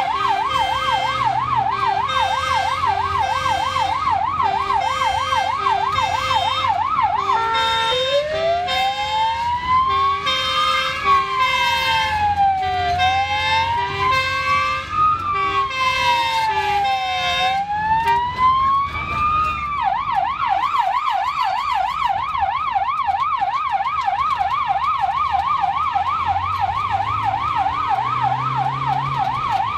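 Ambulance sirens heard from inside the vehicle on an emergency run. The main siren gives a fast yelp, switches about a quarter of the way in to a slow rising-and-falling wail for about twelve seconds, then goes back to the fast yelp. A lower two-note siren alternates steadily underneath, over the low hum of the vehicle.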